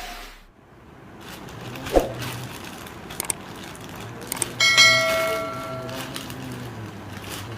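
A few small knocks and clicks, then a single bright metallic ring that starts suddenly a little past halfway and fades over a second or so.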